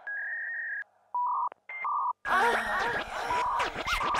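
Electronic beeps held at a few fixed pitches with short silent gaps, then about two seconds in electronic music starts, with quick sweeping tones.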